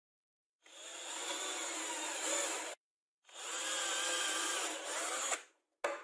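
Cordless drill boring into a small wooden block in two runs of about two seconds each, its motor pitch wavering as the bit cuts. A sharp knock follows near the end.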